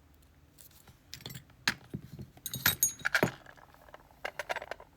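Small metal pin-tumbler parts from an Abus C83 padlock (pins and springs) clicking and clinking as they are handled and tipped out, a scatter of sharp ticks with a few louder clinks in the middle.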